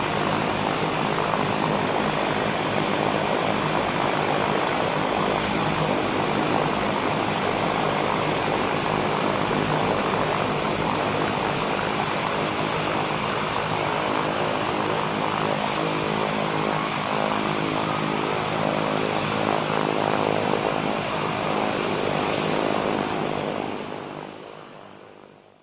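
Propeller airplane engine running steadily, then fading out over the last two seconds.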